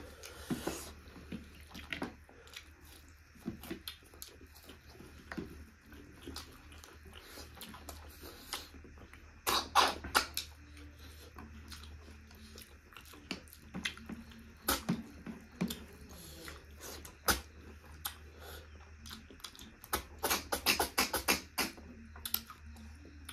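Eating a snail curry: chewing and mouth sounds close to the microphone, with short sharp clicks that bunch up about ten seconds in and again near the end.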